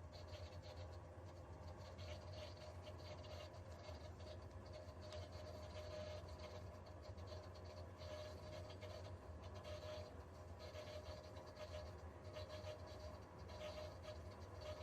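Circulation pump of a Viessmann Vitodens 100 condensing boiler running with a faint steady hum and a fine scratchy rattle. The rattle is a vibration typical of these pumps when a part inside comes loose.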